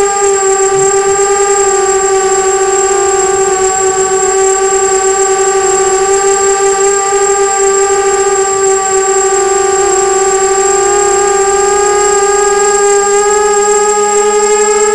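Brushless motors and propellers of a 250-size FPV racing quadcopter whining steadily, heard through its onboard camera, the pitch holding nearly level as it cruises.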